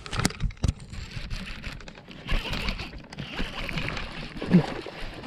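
Splashing water and knocks as a hooked bass is fought up to the side of a fishing boat: a couple of sharp knocks near the start, then a spell of splashing from about two seconds in.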